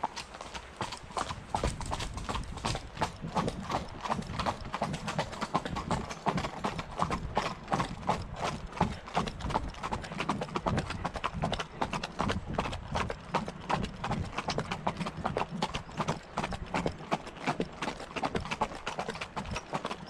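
Horses walking on a gravel path: a steady, even clip-clop of hoofbeats crunching on the grit.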